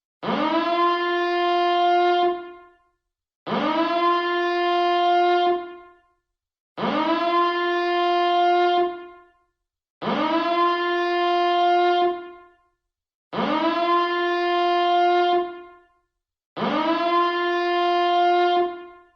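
Nuclear power plant reactor alarm siren sounding in six repeated blasts, about one every three seconds. Each sweeps quickly up to a steady horn-like tone, holds it for about two seconds, then fades out before the next.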